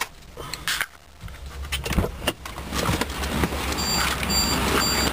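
A few clicks and knocks as the driver's door of a 2000 Jeep Grand Cherokee is unlatched and opened, then, near the end, the Jeep's electronic warning chime beeps three times, high and short, about half a second apart, as it sounds with the driver's door open.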